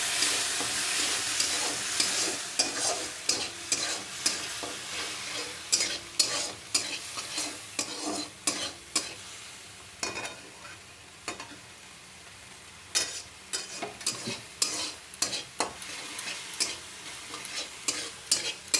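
A spoon stirring masoor dal in a cooking pot, with many sharp clicks and scrapes against the pot. The sizzling is loudest at the start and dies down after a few seconds. The stirring eases off for a few seconds about halfway through, then picks up again.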